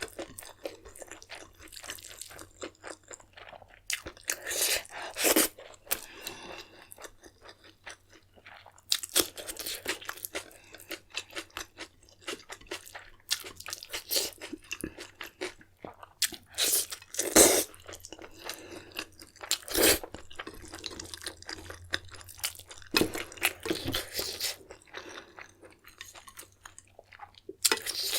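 A person chewing and crunching food close to the microphone, with irregular crunches and mouth clicks; the loudest crunch comes about 17 seconds in.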